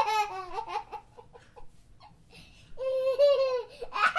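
High-pitched human laughter in two bouts with a short lull between them; a louder burst of laughing starts near the end.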